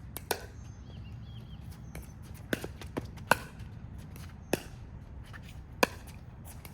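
Pickleball rally: paddles striking a hollow plastic pickleball back and forth, a sharp pock about every second, with a few lighter taps in between.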